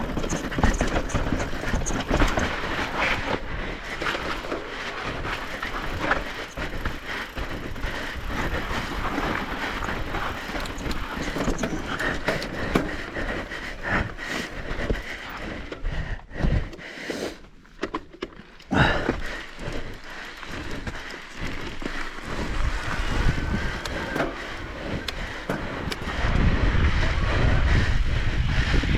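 E-bike rolling over a rough, sandy trail: a steady noise of tyres and frame full of small rattles and jolts. A low rumble of wind on the microphone comes in near the end.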